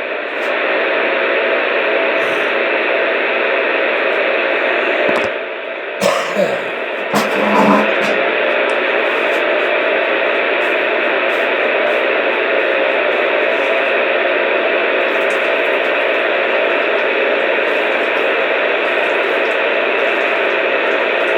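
Radio static: a steady hiss with a humming buzz, briefly disturbed about five to eight seconds in.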